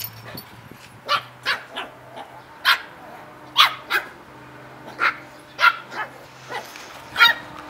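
Puppies yapping: about ten short, high-pitched yips and barks, coming irregularly one after another.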